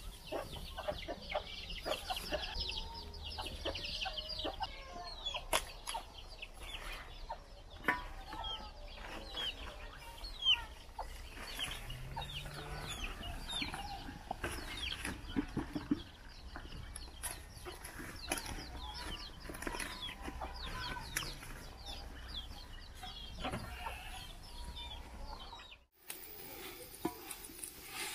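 Chickens clucking, with many short high cheeps and small clicks throughout. About two seconds before the end the sound breaks off sharply and changes.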